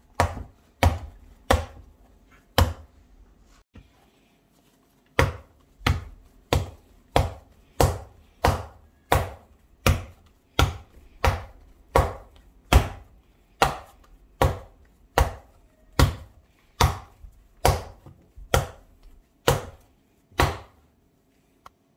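Sticky milk-bread (brioche-style) dough slapped down by hand against a floured wooden bowl, a sharp slap about twice a second, with a pause of a couple of seconds early on. This is slap-and-fold kneading, used to work a dough that is meant to stay slightly sticky.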